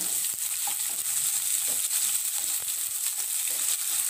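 Chopped onions sizzling in hot oil in a kadai, stirred with a wooden spatula, with a steady hiss and small scattered clicks.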